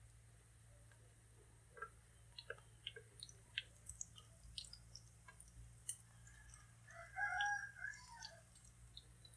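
Scattered light clicks and taps from the frying pan as fried pieces are turned with chopsticks, then a rooster crowing once in the background about seven seconds in, the loudest sound.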